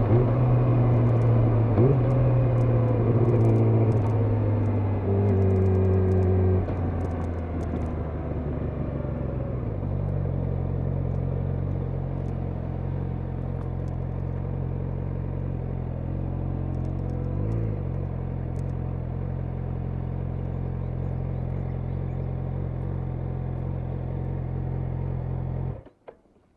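Yamaha YZF-R6 inline-four engine slowing from a run to a steady idle, which it holds for about fifteen seconds. The engine sound cuts off suddenly near the end.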